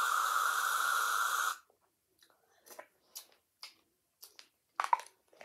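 Aerosol whipped-cream can spraying with a steady hiss that cuts off about a second and a half in. A few faint clicks and knocks follow.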